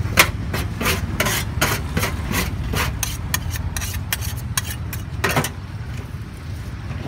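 Metal spatula scraping and tapping on a flat steel griddle in quick repeated strokes, about two to three a second, stopping a little after five seconds in.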